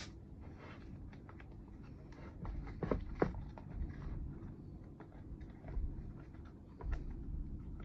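Light clicks and taps of hands and tools on small chainsaw parts, over a low steady hum. The sharpest clicks come about three seconds in.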